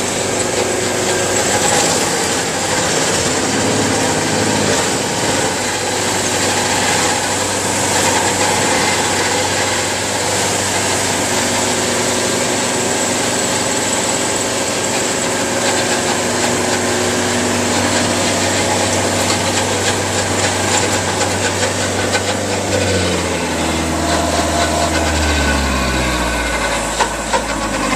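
Engine of powered tree or stump removal equipment running steadily at high speed, then winding down near the end, its pitch falling.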